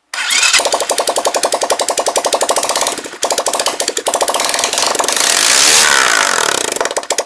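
Single-cylinder four-stroke engine of a BSE J1 supermoto running just after a top-end rebuild, firing in a rapid, even beat. About five seconds in it is revved up and falls back.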